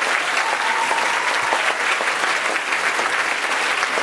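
Steady applause from a hall audience and a choir on stage, many hands clapping at once.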